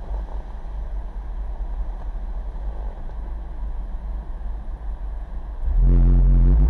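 Low, steady rumble of a vehicle running, with wind on the microphone. About six seconds in, a loud sound with one steady pitch comes in and lasts about a second.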